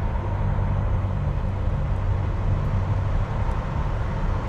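A semi truck's diesel engine idling: a steady low rumble that does not change.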